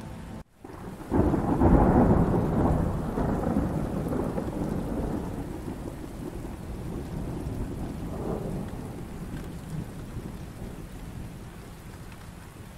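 Steady rain with a loud roll of thunder that breaks in about a second in and rumbles away slowly over several seconds, and a smaller rumble near the end. The sound cuts out for a moment just before the thunder.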